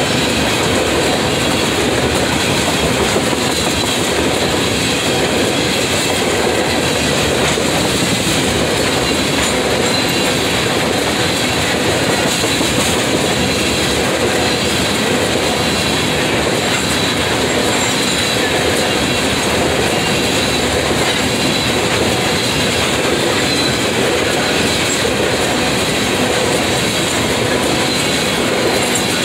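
Freight train of tank cars rolling past close by: a loud, steady rumble of steel wheels on the rails, with a thin steady wheel squeal over it.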